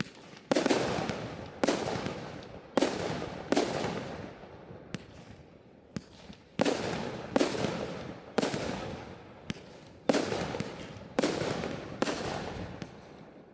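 Fireworks display: aerial shells bursting, about a dozen sharp bangs at irregular intervals, the bigger ones each trailing off over about a second, with a few smaller pops in between.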